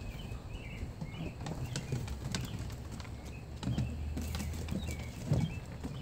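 Irregular clicks and taps of a dog's claws and paws moving on wooden deck boards, with two slightly louder knocks in the second half.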